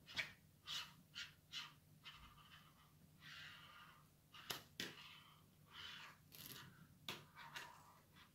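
Faint scratching and rustling of paper and a pen as a cat paws at a spiral notebook and a pen is pushed about on a wooden table. There are a few quick scrapes near the start, two sharp clicks about halfway through, and more rustling after.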